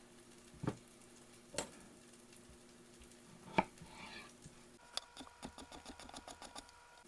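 Kitchen knife slicing a squash and knocking on a cutting board: three single knocks, then a quicker run of light ticks over the last two seconds. Under it, the faint sizzle of onions sautéing in a skillet.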